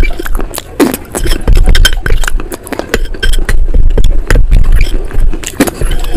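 Close-miked eating of a creamy white clay paste off a spoon: rapid wet mouth smacks and clicks, with the spoon scraping through the paste in the bowl.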